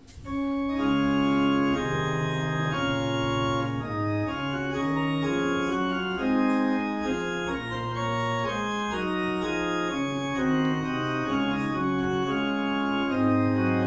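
Organ playing a slow piece of held chords, the chords changing every second or so.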